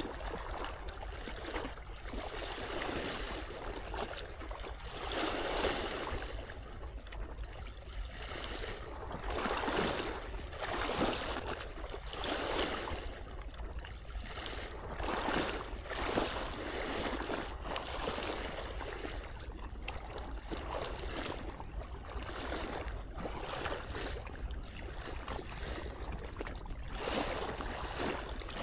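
Seawater washing and surging, swelling and ebbing every one to three seconds, over a steady low rumble.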